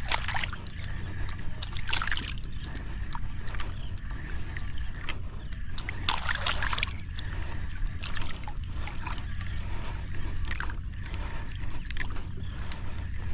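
Wind rumbling on the microphone, with small waves sloshing and splashing now and then.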